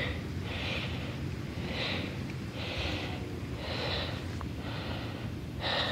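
A person breathing close to the microphone: soft hissing breaths about once a second.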